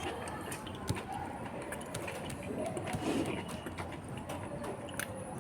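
A person chewing food close to the microphone, with many small wet clicks and smacks.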